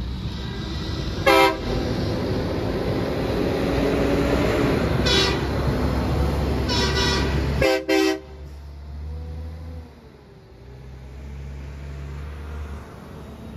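Semi truck going by with its diesel engine running loud and sounding its horn: a short blast about a second in, another around five seconds, then a cluster of quick blasts around seven to eight seconds, after which the engine noise drops away to a quieter traffic rumble.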